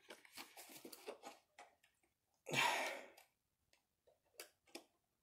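Hard plastic blister packaging crackling and clicking as it is worked open by hand: a flurry of crackles in the first second and a half, a longer, louder rustle about two and a half seconds in, then a few separate clicks.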